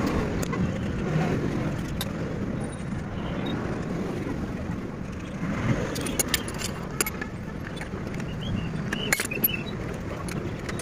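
Scattered light metallic clicks and clinks from lug nuts being turned onto a steel wheel by hand and a wheel wrench's socket being fitted to them: a cluster about halfway through and another near the end. Under them runs a steady low background rumble.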